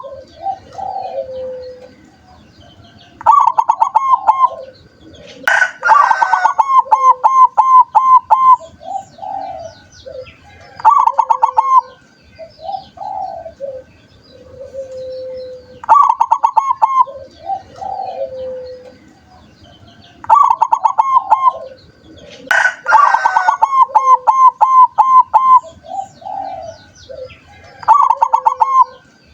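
Zebra dove (perkutut) song: phrases of quick, rolling coos followed by a few lower, drawn-out coos, starting again every few seconds.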